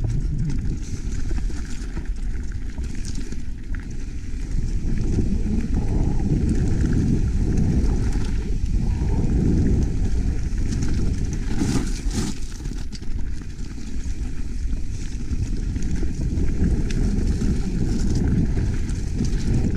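Mountain bike descending a rough trail: wind buffeting the camera microphone as a steady low rumble, with tyre noise and scattered knocks and rattles from the bike.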